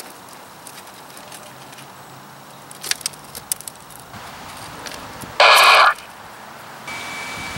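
CB radio: a few faint clicks, then a short, very loud burst of static about five and a half seconds in. Near the end the radio's hiss comes up with a steady high tone.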